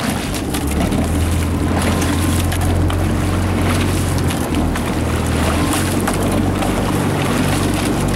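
Outboard motor of a coaching launch running under way, coming up to speed within the first second and then holding a steady pitch, with wind on the microphone.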